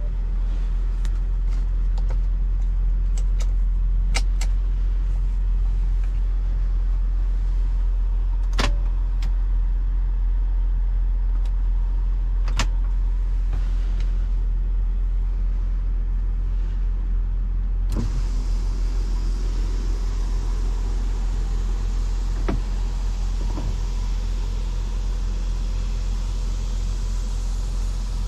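BMW X5 being driven: a steady low rumble of engine and road noise, with a few sharp clicks. About two-thirds of the way through, a louder hiss comes in suddenly and stays.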